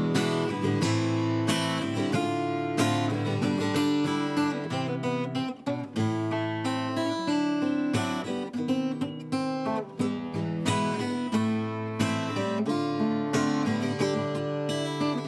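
Iskra Samara Grand Auditorium acoustic guitar with Elixir 12-gauge strings, played with the fingers in a run of strummed and plucked chords. The sound is bright and open with a sharp attack.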